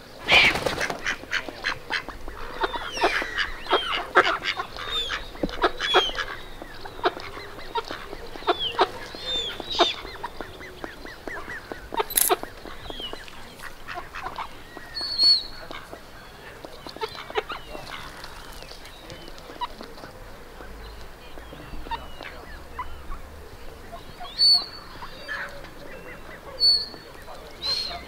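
Waterfowl calling: a busy run of short honking and quacking calls mixed with sharp clicks in the first ten seconds, then only a few scattered sharp high calls.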